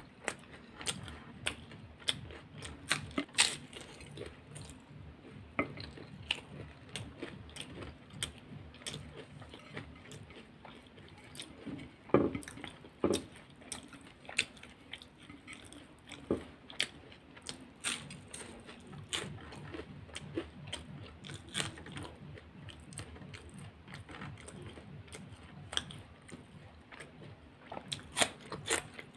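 Close-miked eating: a person chewing and biting into crisp fried samosas and rolls with raw vegetables, with frequent sharp crunches and wet mouth sounds, a few louder bites standing out.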